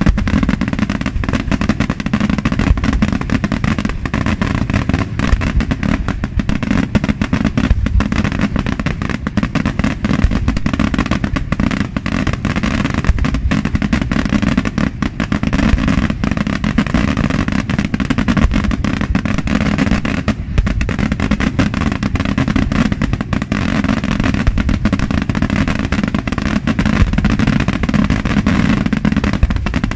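Daytime fireworks display: an unbroken, dense rattle of bangs and crackling reports from shells bursting overhead in white flashes and smoke.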